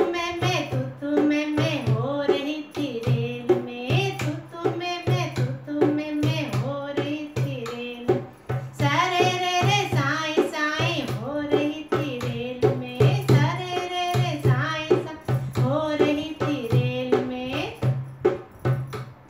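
A woman singing a Hindi wedding folk song (banna-banni geet) to her own dholak accompaniment: a steady rhythm of low, booming drum strokes and sharper slaps beneath her voice.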